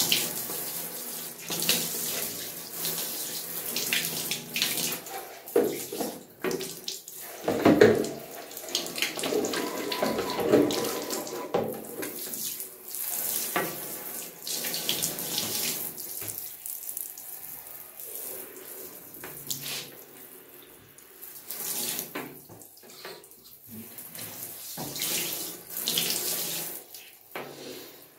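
Water spraying from a handheld shower head into an empty bathtub, splashing on the tub floor and over a hand held in the stream. The rush swells and dips in loudness as the spray is moved about.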